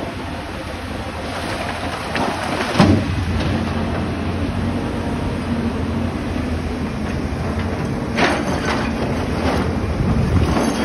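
Volvo crawler excavator's diesel engine running under hydraulic load, its hum growing stronger about three seconds in, with clattering rock: a loud crash of stone dropping about three seconds in and more clatter around eight to nine seconds as the bucket digs into the rock pile.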